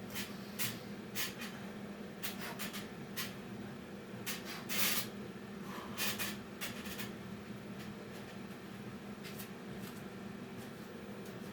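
A person exercising on the floor: short, irregular scuffs and breaths, thick in the first seven seconds and sparse after, over a steady low hum.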